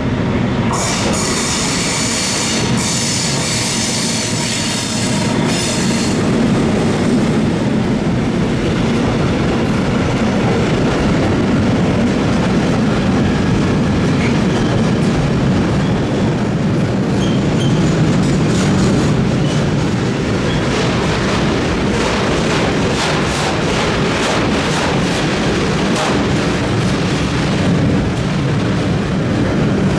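A train running through a station, with a steady rumble, wheels clicking over rail joints and points, and a high thin wheel squeal setting in near the end.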